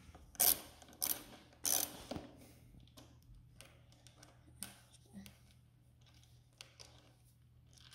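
Ratchet socket wrench clicking as it backs out a silencer mounting bolt on a dirt bike: three loud bursts of ratcheting in the first two seconds, then a few faint ticks and small clicks.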